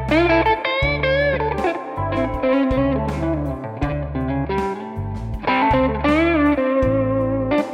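Electric guitar playing A minor pentatonic lead lines, with string bends and vibrato, over a backing track with a low bass part.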